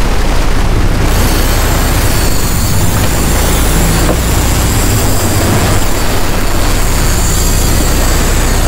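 Boat engine running steadily at trolling speed, with rushing water from the wake and wind.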